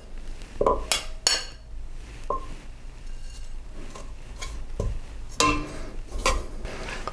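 Metal kitchen tongs clinking against a stainless steel pot and a plate as garlic cloves and rosemary sprigs are lifted into the pot and moved about, a string of separate sharp clinks with a short ring after each.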